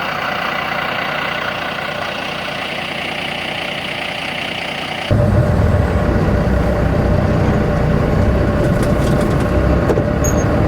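Semi-truck diesel engine running, heard from the cab. About halfway through, the sound changes abruptly to a louder, deeper idle with a steady whine over it.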